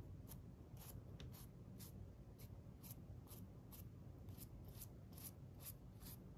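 Stiff paintbrush dry-brushing white acrylic over a carved foam-insulation stone wall: faint, short brush strokes, about two or three a second, over a low steady hum.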